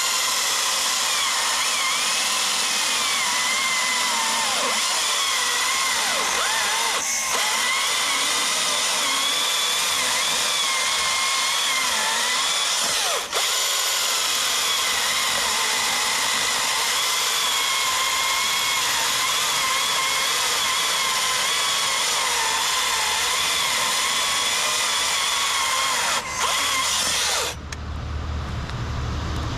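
Husqvarna T542i XP battery top-handle chainsaw pushed hard through a timed cut in wood, its electric motor and chain giving a steady high whine that wavers in pitch with the load. It stops abruptly near the end, after about 28 seconds.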